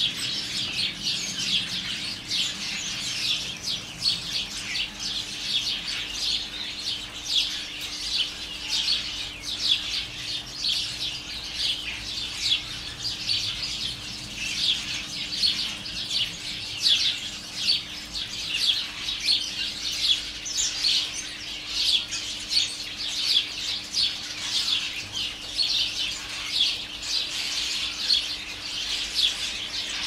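A large colony of house sparrows chirping together, dozens of birds calling at once in a dense, unbroken chatter.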